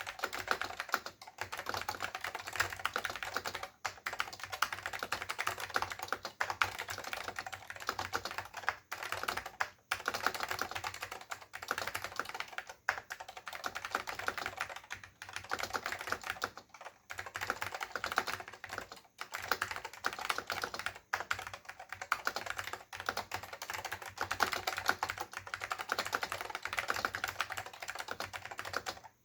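Fast continuous typing on a Dell AT101 keyboard with Alps SKCM Salmon switches and PBT dye-sublimated keycaps: a dense run of keystroke clicks, broken by short pauses every two or three seconds.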